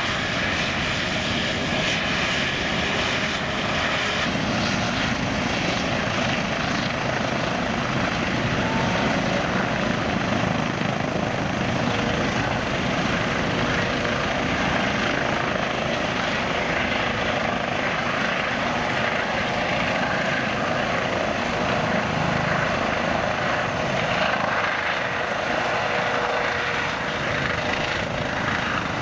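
Airbus EC135 helicopter's twin turbine engines, main rotor and Fenestron tail rotor running at steady high power as it lifts off and hovers, with a steady high whine over the rotor noise.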